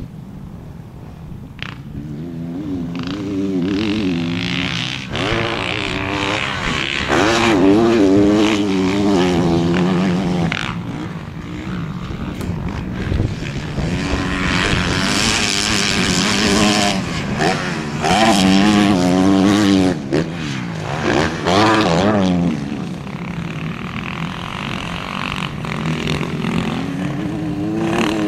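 Motocross bike engine revving hard and easing off over and over, its pitch climbing and falling with each burst of throttle.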